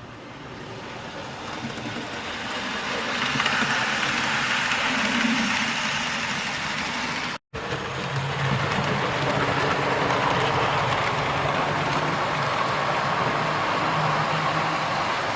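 Model trains running on a loft layout: a steady rumble of wheels on the track and electric motors, with a brief dropout about halfway through.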